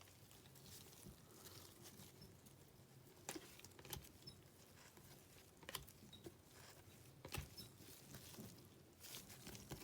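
Trading cards being handled quietly, with a few faint, soft clicks as the cards are slid and flipped through, over a low room hum.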